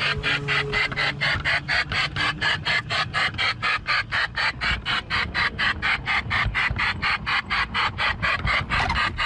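LGB G-scale model train running, with a steady rhythmic chuffing of about five or six hiss-like beats a second.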